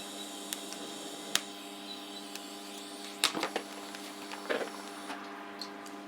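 TIG welding: a steady electrical buzz with a high hiss that cuts off about five seconds in, broken by several sharp clicks and knocks, the loudest a cluster about three seconds in.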